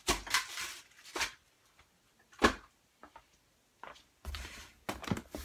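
Boxed products and packaging being handled and set down by hand: a run of rustles and knocks, with a sharp knock about two and a half seconds in and a cluster of handling noise near the end.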